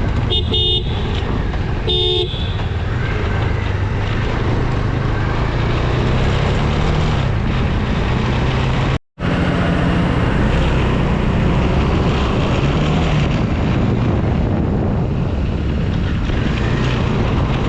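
Motorcycle running at road speed with heavy wind noise over the engine's low note. Two short horn toots sound about half a second and two seconds in, and the sound cuts out for an instant about halfway through.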